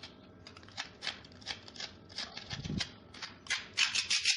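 Small metal putty knife scraping excess mortar lumps and drips off decorative brickwork, in short rasping strokes about two or three a second that come faster near the end.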